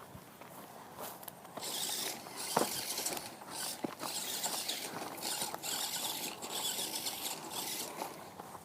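Toy RC car's electric motor whirring in repeated short throttle bursts as it drives over grass, with a high hiss of motor and tyres that starts and stops every second or so.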